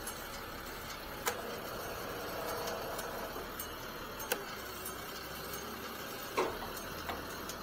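Truck-mounted crane's engine running steadily, with a faint whine at times and several sharp clicks.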